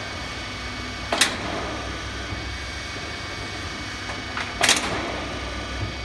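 Hydraulic crimping machine for metal roof sheet at work: a steady low hum of the running machine, broken twice, about a second in and again near the end, by a short sharp stroke of the press as it crimps the profiled sheet into a curve.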